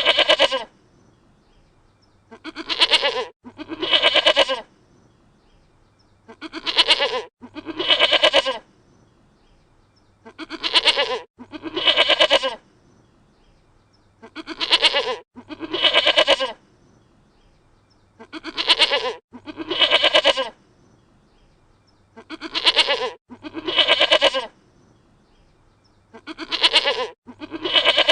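Dutch goat bleating in pairs, two calls about a second apart, the same pair repeating about every four seconds.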